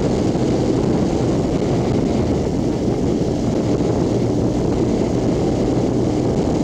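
Motorcycle riding fast, heard from the rider's seat: a steady rush of wind noise over the engine's low drone.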